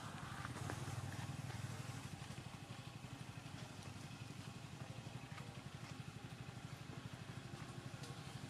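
An engine running steadily, a low even hum with a rapid pulse, with a few faint clicks over it.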